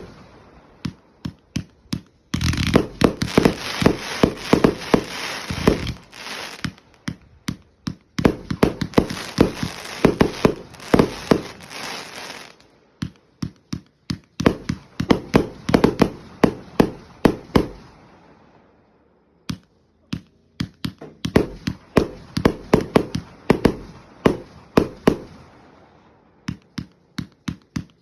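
Fireworks going off: rapid runs of sharp pops and bangs, several a second, with a hissing rush behind them in two long stretches, and a short lull a little past halfway before the pops start again.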